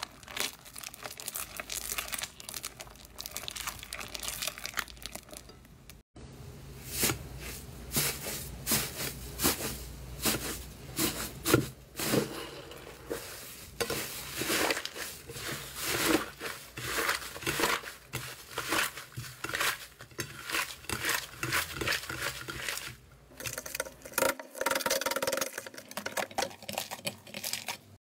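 Slime being stirred with a spatula and then stretched and torn apart by hand. It makes a dense run of quick crinkling, crackling and tearing sounds, with a brief gap about six seconds in.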